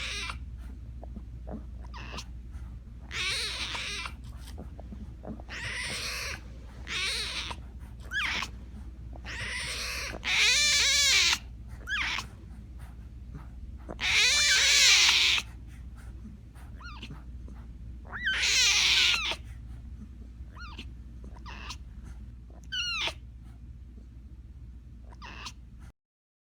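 Tiger cub calling: a series of about a dozen high-pitched mewing cries, some short and some drawn out over a second with falling pitch, over a steady low hum.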